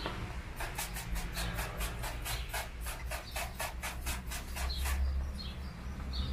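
Hand trigger spray bottle squirting water onto a vinyl decal, about five quick hissing squirts a second for roughly four seconds, wetting the adhesive for a wet application.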